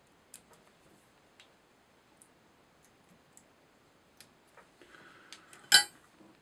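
Small scissors snipping off turkey-biot butts at a fly-tying vise: scattered faint ticks and clicks, with one sharp click about three-quarters through.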